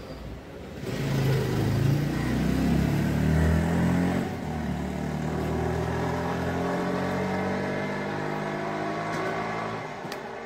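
A motor vehicle's engine running close by, starting about a second in with a steady hum whose pitch slowly rises, easing off near the end.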